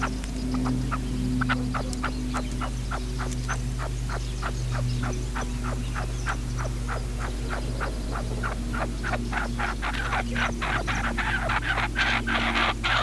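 Caged decoy male red-legged partridge calling: a steady run of short clicking notes, about three to four a second, growing quicker and louder near the end, as the decoy calls to draw a wild partridge. A low steady hum runs underneath.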